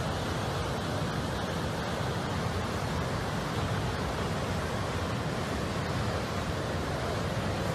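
Heavy storm surf washing onto a rocky shore, a steady rushing noise with wind mixed in.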